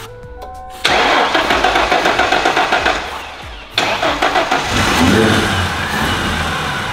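A long-stored Ford Mustang engine being cranked over by its starter, with an aerosol sprayed into the air intake, in two long attempts: one starting about a second in, the second just under four seconds in. It keeps turning over without catching, because the engine is not getting fuel.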